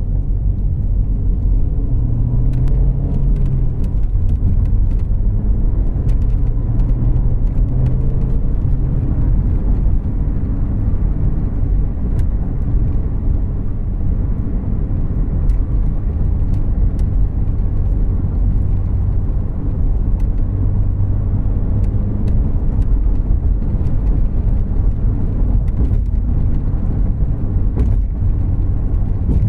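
Inside the cabin of a moving 2014 Volkswagen Jetta Clásico: a steady low rumble of engine and road noise, the engine note shifting slightly now and then, with a few faint light ticks.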